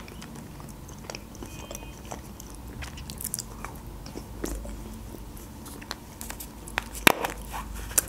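Close-up chewing of Kinder Surprise milk chocolate, with small wet mouth clicks. Near the end come a few sharper clicks as the yellow plastic toy capsule is pulled open by hand.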